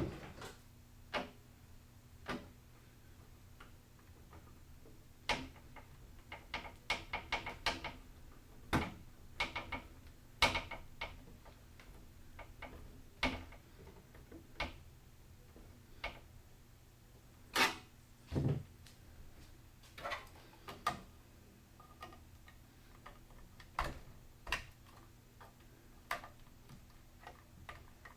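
Scattered sharp clicks and light knocks from hands working on computer hardware, with a quick run of about a dozen clicks between roughly six and eight seconds in, over a faint steady low hum.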